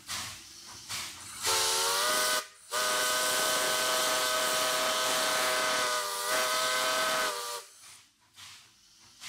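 Steam locomotive whistle blowing: a short blast about a second and a half in, then a long blast of about five seconds. It sounds as a chord of steady tones over a loud rush of hissing steam.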